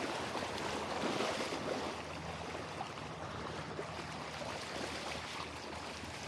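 Shallow creek water running over gravel, with hooked salmon thrashing and splashing at the surface; a little louder for the first couple of seconds.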